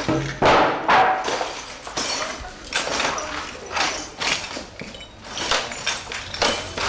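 Irregular knocks and clatter of hard objects being handled and set down, about one or two a second.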